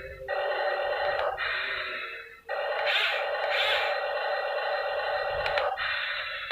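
Small electric motors of a Yigong RC toy excavator whining as it works, stopping about two seconds in and starting again a moment later, with two short hissy scrapes in the middle.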